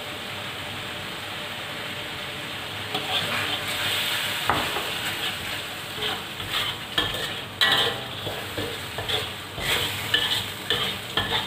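A spatula stirs and scrapes thick chili sauce frying in a metal wok. Over a steady hiss, irregular scrapes and clatters start about three seconds in.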